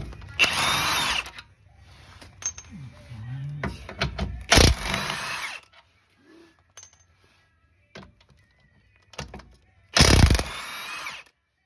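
Power tool running in three short bursts of about a second each, spinning out the three 14 mm bolts of a transmission mount, with small clicks of tool and metal in between.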